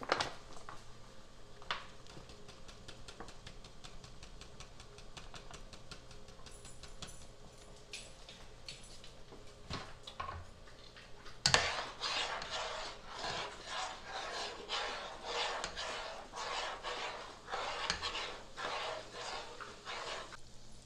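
A spoon stirring a pot of soup: a sharp knock, then rhythmic scraping strokes against the pot at about two a second through the second half. A few light utensil clicks and taps come before it.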